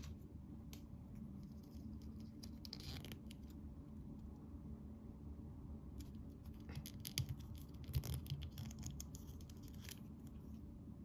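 Faint handling of a small plastic L.O.L. Surprise doll between fingers and long nails: light scattered clicks and scratches as its clothing is worked on, with a few sharper clicks about two-thirds of the way through.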